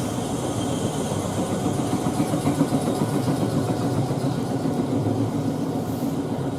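Electric train running, a steady rumble with a hiss above it.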